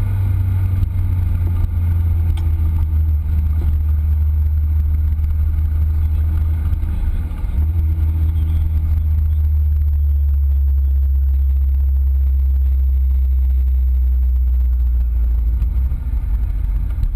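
Lotus Exige S supercharged four-cylinder engine heard from inside the car, running at low, steady revs with a deep hum. The pitch drops slightly a couple of times before settling, as when the car is cruising gently rather than being driven hard.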